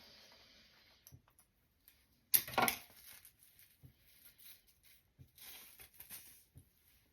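Velcro hair rollers being pulled and peeled from the hair, giving a crackling rip about two seconds in and a softer, longer one a little after five seconds.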